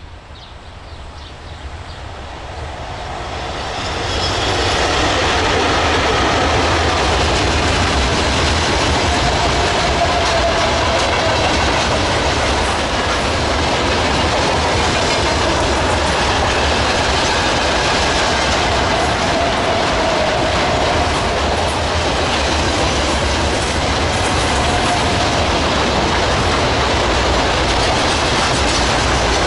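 Freight train behind a VL80S electric locomotive running past on the rails. It grows louder over the first four seconds, then holds as a steady loud rumble and clatter of wagon wheels on the track.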